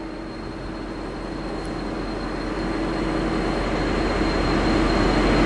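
V/Line N-class diesel-electric locomotive's engine powering up to pull out with its train, getting steadily louder over a steady engine hum.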